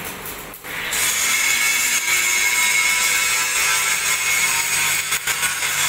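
Handheld angle grinder working steel, starting suddenly about a second in and then running steadily with a high whine over a hiss.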